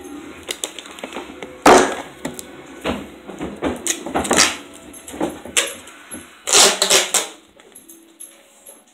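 Duct tape being pulled off the roll in several short, loud, rasping pulls, with hands handling the tape and roll in between.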